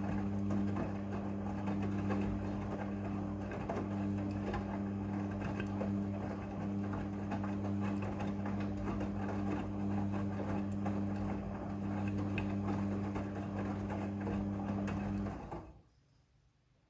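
Midea front-loading washing machine running: a steady motor hum with irregular clatter and rushing noise, which stops about fifteen seconds in.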